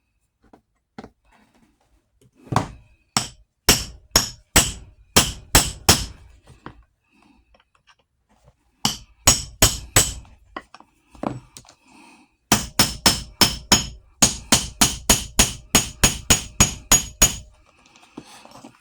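A hammer striking repeatedly during Blevins buckle replacement on a Western saddle, in three runs of sharp blows: about nine, then a short handful, then a fast steady series of about three blows a second that ends near the close.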